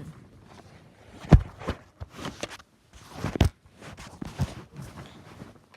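A few separate knocks and thumps of something being handled or set down, the two loudest about a second and a half in and about three and a half seconds in, with lighter taps between.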